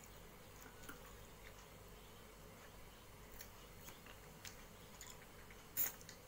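A man chewing and eating rice and curry with his fingers: soft mouth sounds and scattered small clicks, with one sharper smack near the end.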